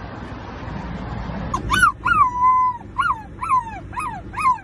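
Puppy howling in a run of short yelps that rise and fall in pitch, one held a little longer, about two a second, starting about a second and a half in.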